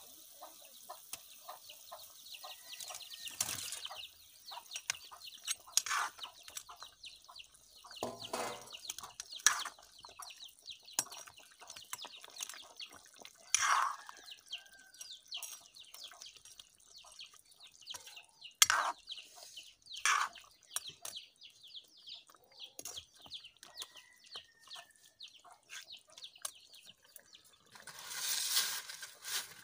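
Fish curry bubbling and crackling in a large aluminium kadai over a wood fire, with a steel ladle now and then clacking against the pan. Dry palm leaves rustle near the end.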